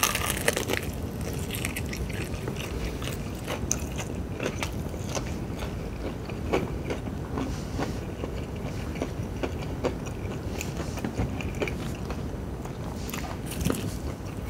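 Biting into and chewing a crispy fried chicken drumstick, the crust crunching and crackling in many small sharp clicks, with a few louder crunchy bites along the way.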